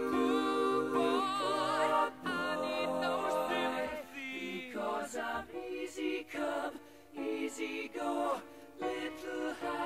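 Background music of choral singing, voices with vibrato. Long held chords give way to shorter phrases about four seconds in.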